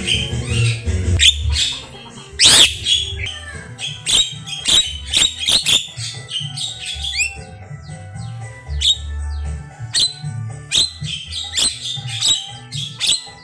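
Javan myna (jalak kebo) singing a varied, mimicry-rich song: many short sharp chirps and harsh squawks in quick succession, with a few quick rising whistles. A low pulsing sound runs underneath.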